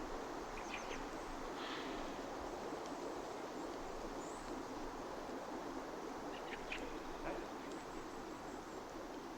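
Steady outdoor ambience of low rushing noise, with a few short bird calls: a cluster about a second in and another near seven seconds in.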